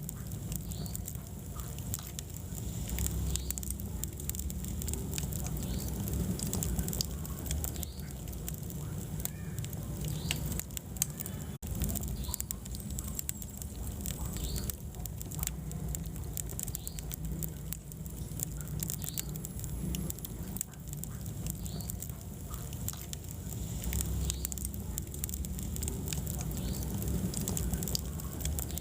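Wood fire burning in a fireplace: a steady low rumble from the flames, with frequent sharp crackles and pops from the burning logs.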